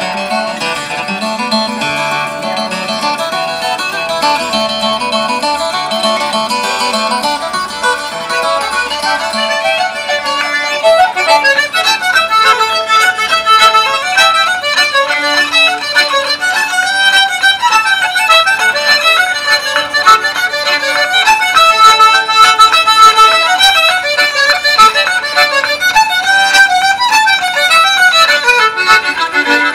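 Instrumental music played on fiddle and accordion. It grows louder and busier about ten seconds in.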